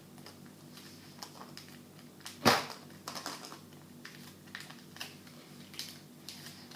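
Scattered light clicks and taps of a plastic surprise egg being handled, with one louder sharp snap about two and a half seconds in, over a faint steady hum.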